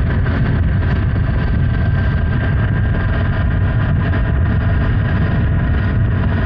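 Honda Hornet 900's inline-four engine running steadily while riding, with wind noise on the microphone.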